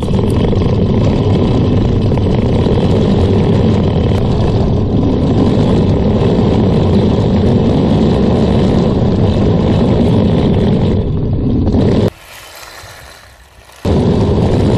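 3D-printed RC tank driving over dirt, heard from on the chassis: its brushed 540 55T motor and plastic tracks make a loud, steady, clattering rumble. The noise drops away for about two seconds near the end, then resumes.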